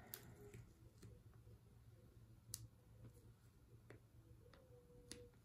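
Near silence, broken by a few faint clicks and taps of fingers handling a plastic bucket while pressing a vinyl decal onto its side.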